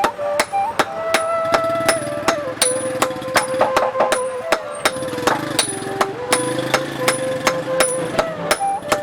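Hammer blows on metal at an anvil, a quick even rhythm of about three or four ringing strikes a second, the blacksmith forging iron into a weeder blade. A music melody plays under the strikes.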